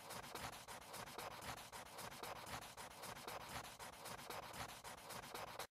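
Quiet pencil scratching on paper in rapid sketching strokes, cutting off suddenly near the end.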